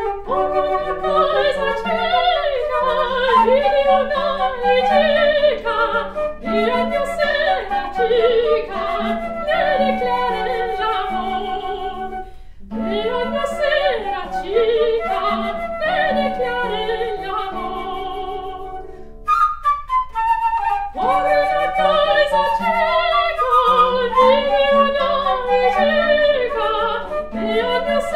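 Classical soprano singing a Sephardic song, accompanied by flute and nylon-string classical guitar, with short breaks between phrases.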